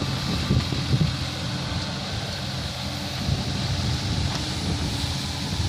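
Kubota mini excavator's diesel engine running steadily, with strong wind buffeting the microphone.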